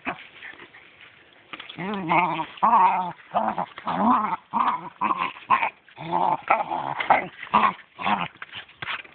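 Dachshund growling and whining in a rapid string of short, wavering calls, about two a second, starting about one and a half seconds in, while it worries a football in excited play.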